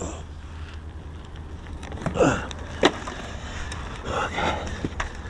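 Handling noises from a hand oil pump and plastic oil bottle being swapped over: creaks, clicks and a sharp knock about three seconds in, over a steady low hum.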